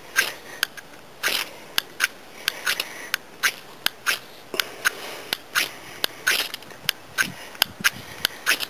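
Steel fire striker scraped hard and fast down a ferrocerium rod (fire steel) to throw sparks into tinder: a quick, uneven series of sharp scraping strikes, about three a second.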